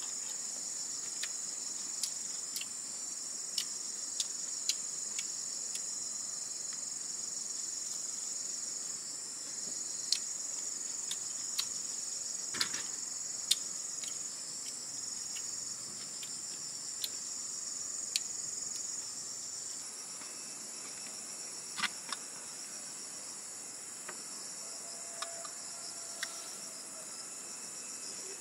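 Steady high-pitched chorus of insects, with scattered light clicks of metal cutlery against metal plates and pans as someone eats.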